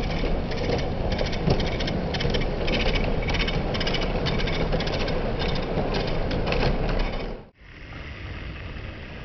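OO gauge model train, a Class 37 locomotive hauling test coaches, running along the track: a steady motor whirr with wheels clicking over the rail joints about three times a second. About seven seconds in the sound cuts off suddenly, and a quieter steady rumble follows.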